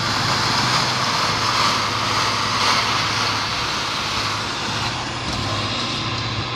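A vehicle engine running steadily, a low hum under a constant rushing noise, heard from inside the cab.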